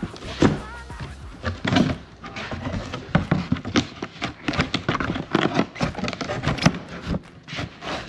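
Cardboard boxes and packaged parts being handled and moved: a string of uneven knocks, taps and rustles.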